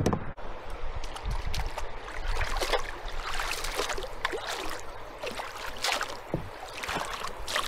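Water splashing and gurgling as a wooden-framed, rubber-mesh landing net is dipped and swished in the river to let a trout go, in a run of irregular splashes that is busiest in the second half.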